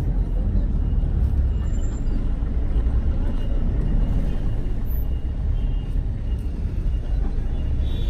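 Steady low rumble of vehicle engine and road noise, heard while riding in a car through city traffic.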